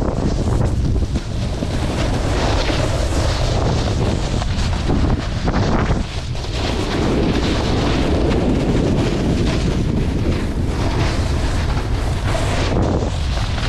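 Wind rushing over an action camera's microphone while riding downhill on a snowboard, mixed with the board scraping and carving over snow.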